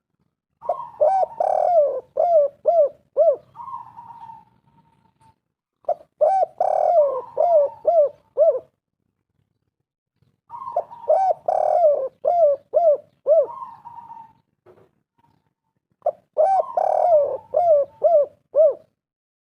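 Spotted dove (tekukur) cooing: four phrases about five seconds apart, each a quick run of short coos rising and falling in pitch, with silence between them.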